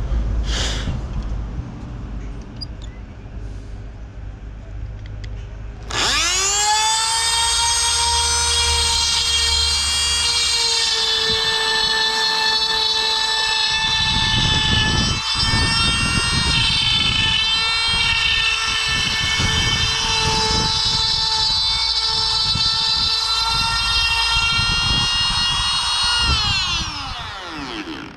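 A high-speed electric power tool's motor spins up about six seconds in and runs with a steady high whine for about twenty seconds, with irregular low rumbling from about halfway as it works. It then winds down near the end.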